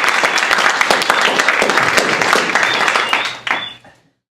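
Audience applauding, a dense patter of many hands clapping that fades out quickly about three and a half seconds in.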